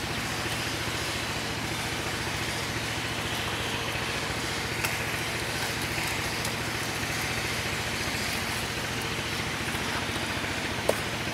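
A small engine running steadily at constant speed, a low even drone over a haze of water noise, with one sharp click near the end.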